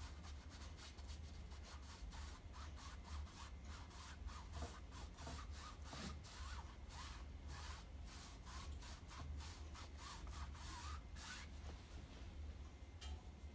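Paintbrush rubbing and scratching on stretched canvas in quick back-and-forth strokes, two or three a second, as white paint is worked in to lighten a dark area; the strokes start about two seconds in and stop shortly before the end.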